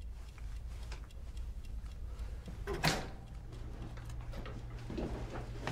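A steady low hum of room tone with faint ticking, and one brief knock about three seconds in.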